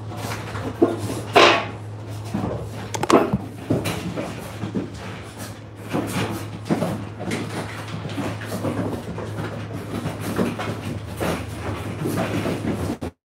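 Irregular knocks, clatters and rustles from handling and movement over a steady low hum, cutting off abruptly near the end.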